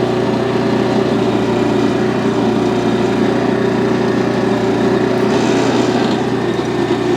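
Gas engine of a Harbor Freight Central Machinery towable backhoe running steadily while the backhoe digs hard, dry soil, with a brief hiss about five seconds in.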